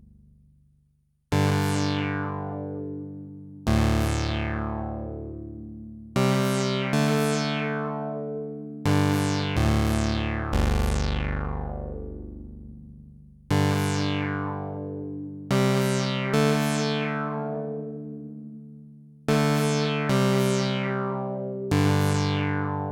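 Arturia MicroFreak synthesizer playing slow, separate notes and chords, each struck sharply and fading away over one to three seconds, about a dozen in all.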